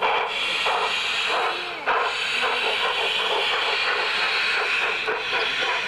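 Steady hiss of steam-train sound as a garden-scale model steam locomotive pulls its cars past, with a sudden jump in level about two seconds in.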